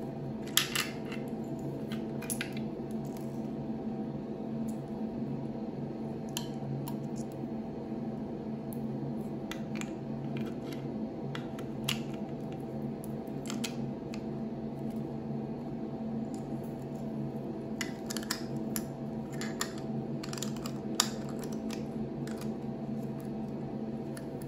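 Scattered small clicks and taps of hard plastic as an LED teeth-whitening mouthpiece and its light unit are handled and the unit's button is pressed, with clusters near the start and again toward the end. A steady low hum runs underneath.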